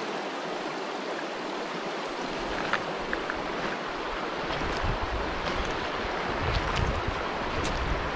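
Shallow river rippling over a stony bed, a steady rush of water. From about two seconds in, wind buffets the microphone with a low rumble, and a few light clicks sound.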